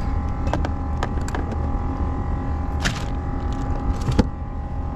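A steady low engine hum with a few even humming tones over it. Several sharp clicks and knocks of fishing gear and a plastic cooler box being handled in an inflatable boat.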